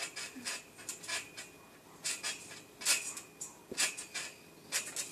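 Trampoline springs and mat creaking and squeaking with each bounce as a child jumps, an irregular run of short sharp bursts about one every half second to second.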